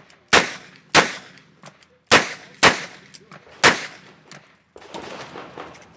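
Smith & Wesson 929 9mm revolver being fired on a practice stage: five loud shots in quick pairs, about half a second apart, with fainter cracks in between, then a softer rustling stretch near the end.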